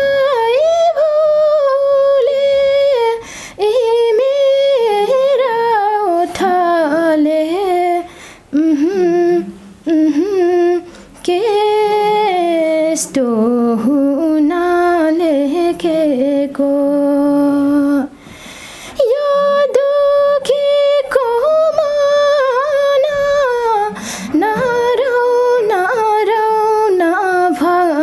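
A young woman sings a slow, mournful Nepali song unaccompanied. She holds long notes and slides between them, with short breaks between phrases.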